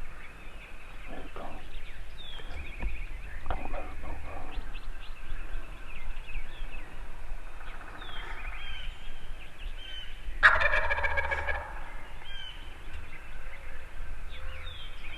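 Wild turkey gobbler gobbling once, loud and rattling, about ten seconds in, with small birds chirping faintly before and after.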